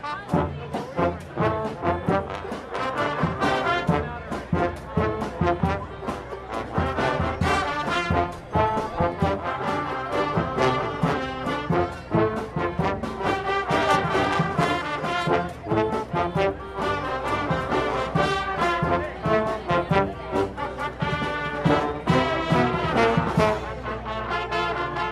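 A street marching band's brass section, trombones and trumpets, playing a lively tune over steady drum beats. Near the end the drums drop out under a held chord.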